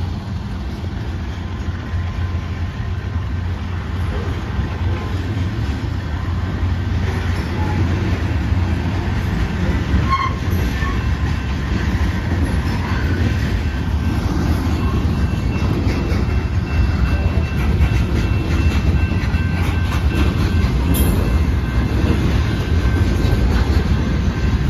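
BNSF freight train passing close by. Its trailing GE Evolution-series diesel locomotives rumble past, then covered hopper cars roll by with a steady low rumble of wheels on rail and a few brief knocks. A faint high wheel squeal comes in over the second half.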